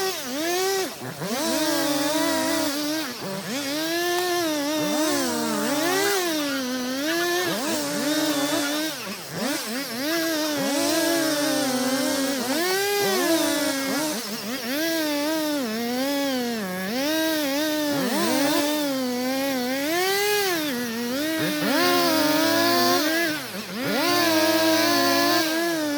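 Two-stroke chainsaw running continuously, its pitch rising and dipping over and over as it is throttled through cuts in wood.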